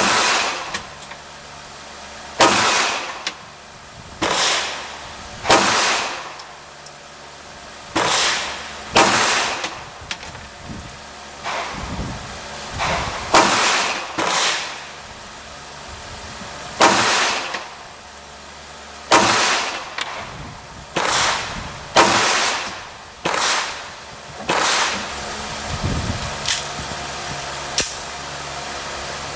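Ruger LC9s 9mm compact pistol firing single shots at a slow, uneven pace, usually one to three seconds apart, each with a short echo.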